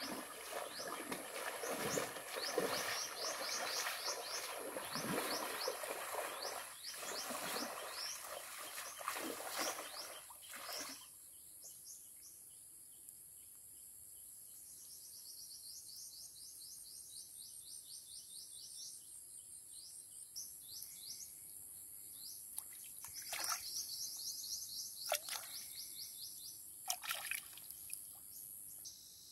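Outdoor ambience of rapid high chirping, about four chirps a second, over busy rustling and knocking that stops about eleven seconds in. A few sharp knocks come near the end.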